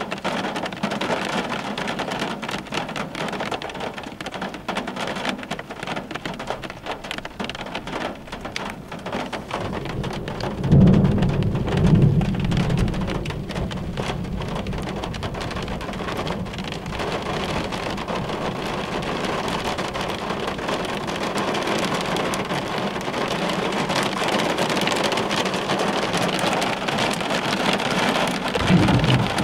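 Heavy thunderstorm rain beating on window glass, with a low rumble of thunder about eleven seconds in and another brief one near the end.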